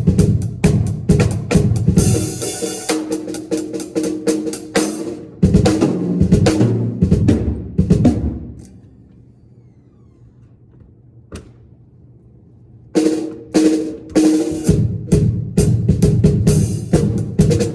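Drum kit played during a sound check: a steady run of kick and snare strokes with a cymbal wash about two seconds in. The playing stops about eight seconds in, leaving a few seconds of low background with a single click, then starts again about five seconds later.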